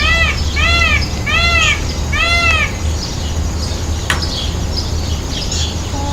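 Indian peafowl (peacock) calling four times in quick succession, each call a loud, short, arched wail that rises and falls in pitch, over a steady low rumble.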